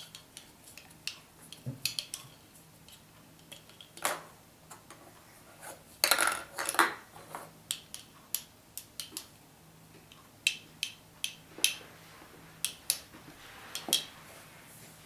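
Irregular clicks and knocks of a small hard plastic toy being tapped and dropped on a wooden floor, a dense flurry of them about six seconds in.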